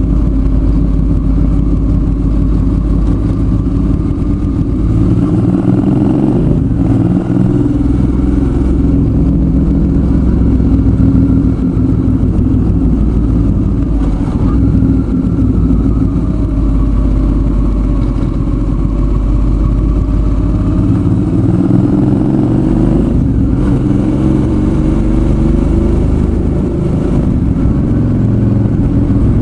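Suzuki V-Strom 650's V-twin engine running under way. The pitch rises and falls with the throttle, and there are short breaks about 7 and 23 seconds in.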